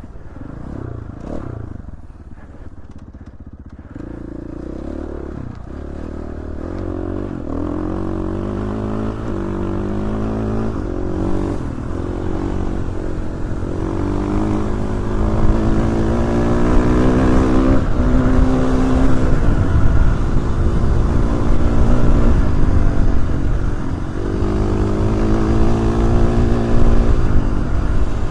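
Dirt bike engine running as the bike is ridden, its pitch climbing and dropping repeatedly with revs and gear changes, getting louder over the first half.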